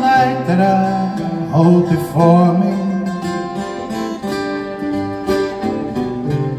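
Folk band playing live on acoustic guitars, fiddle and banjo: a melody line with sliding note onsets over steady guitar strumming.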